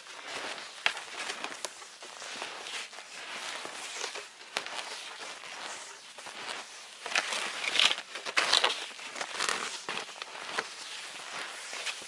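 Footsteps crunching through deep snow at a steady walking pace, with a few sharp snaps along the way; the crunching grows louder about seven seconds in.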